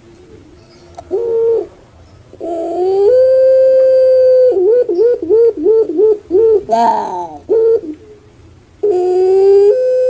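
Puter pelung (Barbary dove, Streptopelia risoria) calling: a short coo about a second in, then a long note that steps up and holds steady, a quick run of about seven rolling notes, a few short notes, and another long held note starting near the end.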